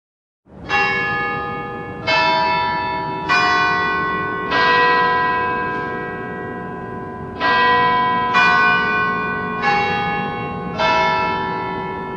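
Church bells ringing: eight strokes on bells of differing pitch, each ringing on and fading into the next, with a longer pause of about three seconds after the fourth stroke.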